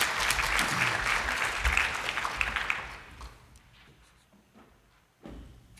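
Audience applauding, dying away about three seconds in; a single thump near the end.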